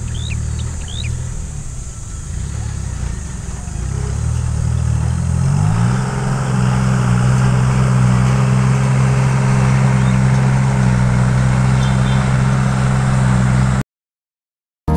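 A farm tractor's engine running, its pitch rising about five seconds in and then holding steady at a higher speed. The sound cuts off abruptly near the end.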